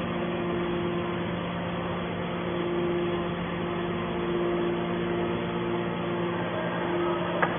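Gasoline engine of a scrap metal baler running steadily with an even, pitched hum, powering the baler's compression. A single sharp click near the end.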